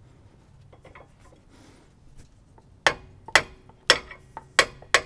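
A hammer striking a brass drift to drive out the long bolt of a truck's stabilizer link: five sharp metallic blows, unevenly spaced, starting about three seconds in, each leaving a short ring. Before the blows there are light clinks of tools being handled.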